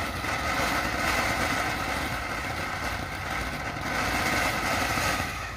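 Silver Snow Fountain ground fountain firework burning with a steady, crackling hiss in its strobe stage, cutting off sharply near the end as it burns out.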